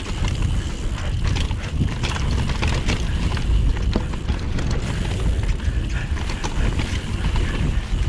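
Wind buffeting a GoPro's microphone on a fast downhill mountain bike run, with a steady stream of rapid clicks and rattles from the bike clattering over rough trail.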